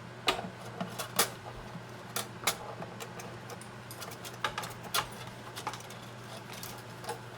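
Irregular light clicks and ticks of a metal sound-post setter and wire knocking inside a mandolin's hollow body as the wire is fished out through the sound hole.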